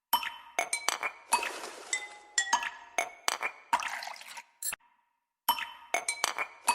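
Background music made of clinking, bell-like struck notes in a short loop that starts over about every five and a half seconds, with a brief silent gap before each restart.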